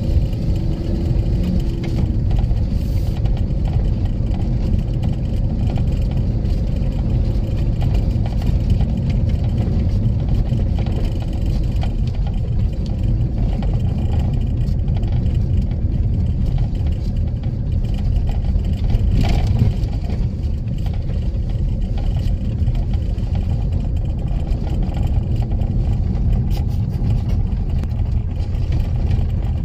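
A car's engine and tyre noise rumble steadily while driving along a narrow, rough paved road, heard from inside the cabin. A short knock sounds about two-thirds of the way through.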